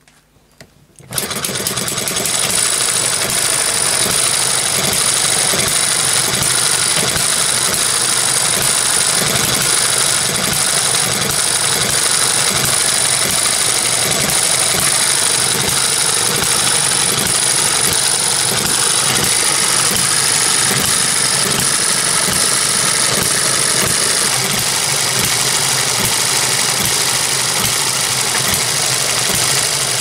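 Eachine ET1 miniature hit-and-miss gas engine started by a hand flick of the flywheel, catching about a second in and then running steadily with a rapid, even beat.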